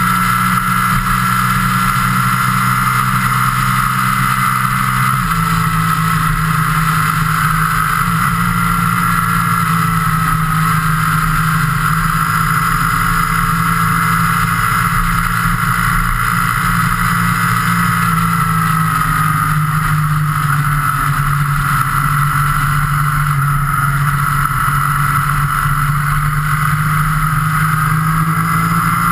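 Engine of the camera vehicle running steadily at cruising speed, with road and wind noise. The engine note steps down once about five seconds in, as with a gear change, then holds steady.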